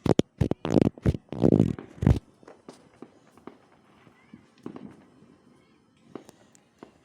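Fireworks going off: a rapid run of loud bangs and crackles in the first two seconds, then only faint scattered pops.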